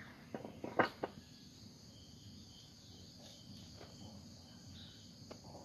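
Faint steady chirring of insects, like crickets, with a few short knocks or clicks in the first second.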